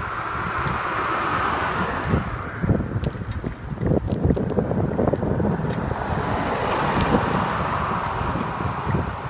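Wind buffeting the microphone, with two road vehicles passing close by: a car in the first couple of seconds and a small flatbed truck near the end, each one's tyre noise swelling and fading.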